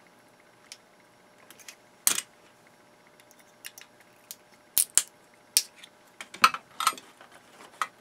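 Irregular sharp metallic clicks and scrapes as a screwdriver pries a small metal heat sink off a circuit board and the parts are handled. One strong click comes about two seconds in, and a cluster of the loudest clicks follows in the second half.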